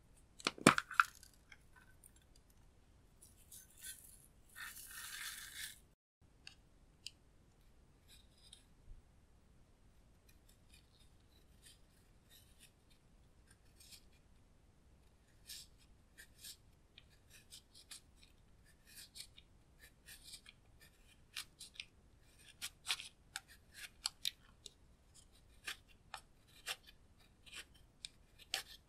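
Plastic spatula scraping and crumbling white pressed powder makeup out of a compact, in many short scratchy strokes that grow louder and more frequent in the second half. A sharp click comes about a second in and a brief hiss around five seconds.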